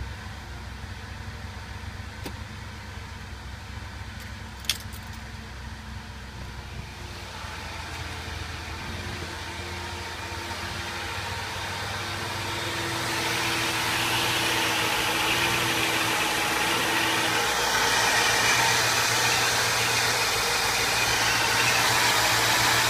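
1998 Cadillac DeVille's 4.6-litre Northstar V8 idling in park, an idle the owner calls inconsistent. It is heard first from inside the cabin, then louder and brighter close to the engine, with a single sharp click about five seconds in.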